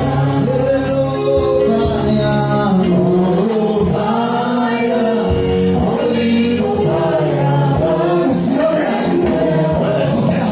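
Gospel song sung by a group of voices with instrumental backing.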